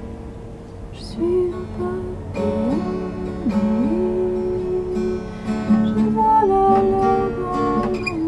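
Acoustic guitar played in a steady pattern, with a woman's voice coming in about a second in, singing long held notes that slide up and down in pitch.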